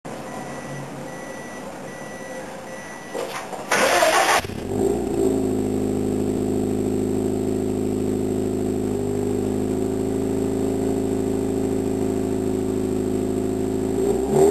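Subaru Impreza STi's turbocharged flat-four boxer engine through an AVO aftermarket exhaust being started: after a few faint, evenly spaced beeps, the starter cranks briefly about four seconds in, the engine catches and settles into a steady idle, and the level starts rising again at the very end.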